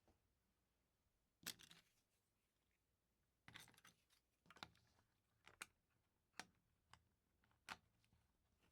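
LEGO bricks being handled and pressed together: sharp plastic clicks, a short cluster near the start and another a couple of seconds later, then single clicks about a second apart.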